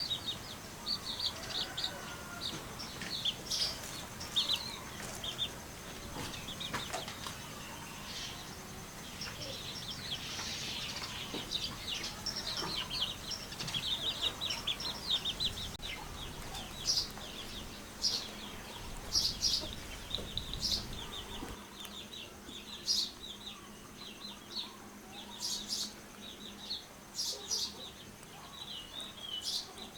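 Chickens chirping and clucking: a dense run of quick high-pitched calls, thinning to separate short, sharp calls in the second half.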